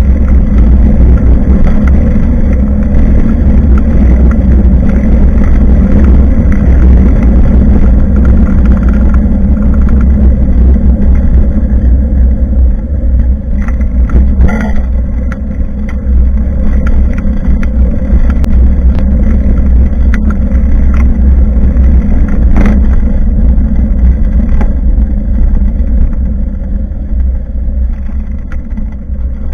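Wind rumbling on the microphone of a bicycle-mounted action camera while riding, loud and steady, with a few sharp knocks from the bike about halfway through and again past two-thirds of the way.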